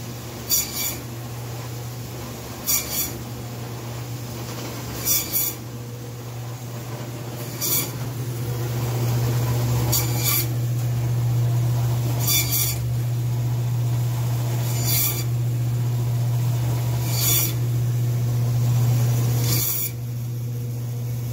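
Hobart meat band saw running with a steady hum, its blade rasping briefly through bone about every two and a half seconds as bone-in bear chops are cut. The hum gets louder about a third of the way in.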